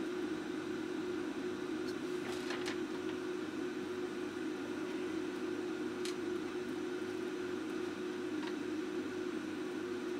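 Steady hum of a small electric motor or fan in the running bench equipment, holding one pitch, with a few faint light ticks about two, six and eight and a half seconds in.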